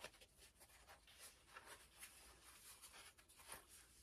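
Faint rustling and scraping of a small black card box and its paper wrapping being unfolded and opened by hand, in short irregular scratches.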